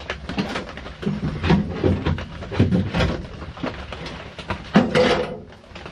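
Irregular knocks, clanks and rattles of work on a pickup door's top hinge pin, with a louder scraping stretch about five seconds in.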